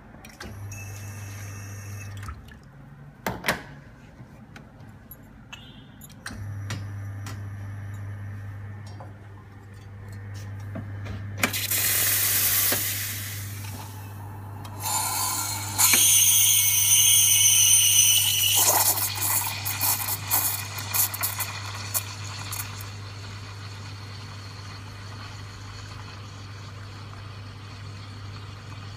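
Espresso machine running with a steady low pump hum as a shot brews. Around the middle, the steam wand hisses loudly for several seconds, twice, as milk is steamed in a stainless steel pitcher, followed by a few light clicks and knocks.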